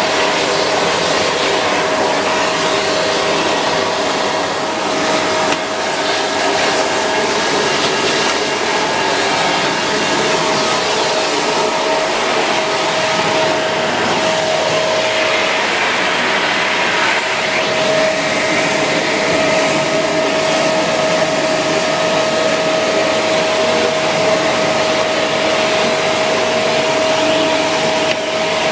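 Shark Rotator Pro Lift-Away NV500 vacuum cleaner running steadily: a constant motor whine over a loud rush of air, with the airflow sound shifting briefly about halfway through.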